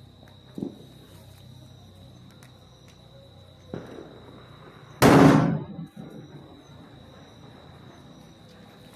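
A Jugmug 3000 firecracker bomb goes off with one loud bang about five seconds in, after two small knocks. Insects keep up a steady high trill in the background.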